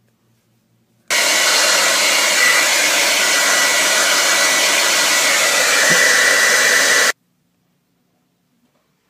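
Handheld hair dryer switched on about a second in, blowing with a loud, steady rush and a thin high whine in it. It is switched off abruptly about six seconds later.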